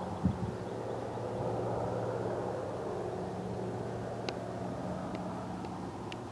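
Canadair CL-215 water bomber's two propeller engines droning steadily as it climbs away after takeoff, slowly fading. A brief thump of wind on the microphone right at the start.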